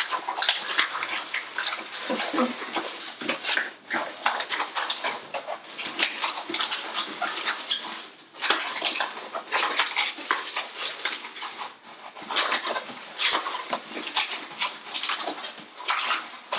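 Latex twisting balloons squeaking and rubbing against each other as they are twisted and locked together by hand. The sound is a steady run of short squeaks and creaks, with a few brief pauses.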